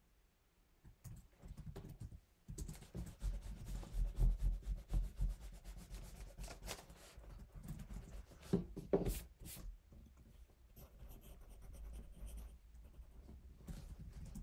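Pencil writing on notebook paper, a run of short scratching strokes, with soft knocks and bumps against the desk, loudest a few seconds in.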